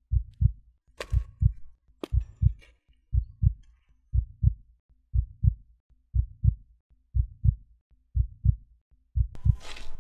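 Slow heartbeat sound effect: paired low lub-dub thumps about once a second. Two sharp clicks come about one and two seconds in, and a brief rush of hissing noise near the end.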